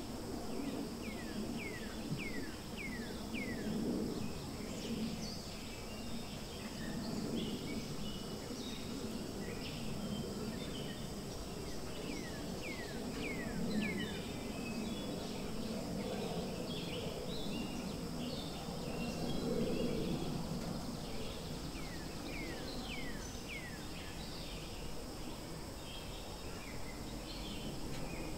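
Forest ambience: birds calling, with runs of four or five quick falling whistled notes three times over and other scattered chirps, above a steady high insect hum and a low background rumble.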